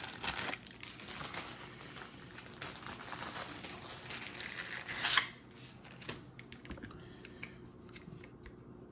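Plastic packaging rustling and small plastic clicks as a camcorder accessory, a handheld bracket, is unpacked and handled, with one louder rustle about five seconds in.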